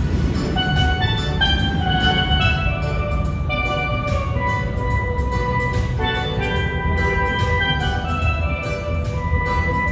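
Steel pan (steel drum) played in a quick melody of bright, short struck notes, over dense, steady low bass.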